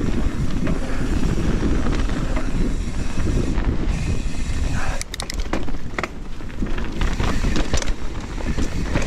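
Mountain bike riding down a wet, muddy trail: the rumble and rattle of tyres and bike over rough ground, with wind on the microphone. The noise dips briefly about five seconds in, where a few sharp clicks sound.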